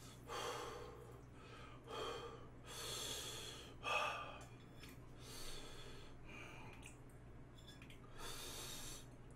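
A man breathing hard through his mouth while eating extremely spicy noodles: a series of short, hissing breaths in and out, roughly a second apart, as he tries to cool the burn of the chili.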